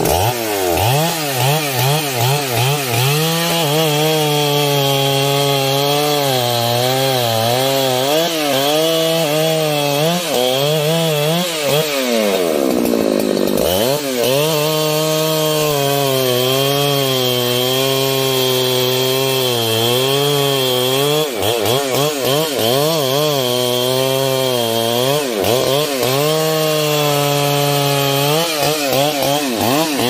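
Large professional chainsaw cutting trembesi (rain tree) wood, its engine running hard with the pitch wavering under load. About halfway through, the pitch drops briefly and climbs back up.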